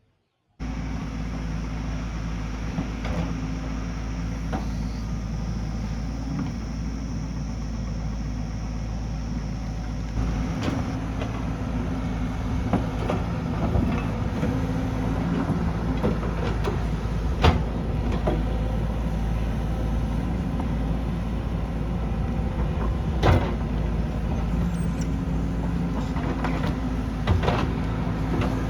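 Diesel engine of a heavy earthmoving machine running steadily, with a few sharp knocks, the loudest about two-thirds of the way through and again near the end.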